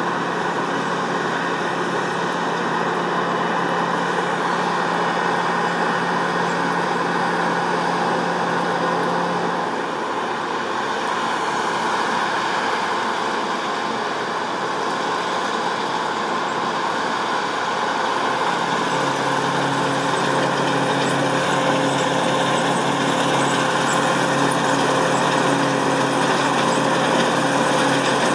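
Massey Ferguson 7360 PL Beta Paralevel combine harvester running steadily while harvesting grain: a dense, even drone of engine and threshing machinery. Its pitch changes about ten seconds in and again a little before twenty seconds.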